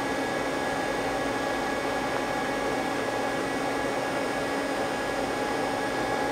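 Steady machine hum and hiss with several steady tones underneath, unchanging throughout: the background running noise of a machine shop, with the Mazak CNC lathe's control powered on.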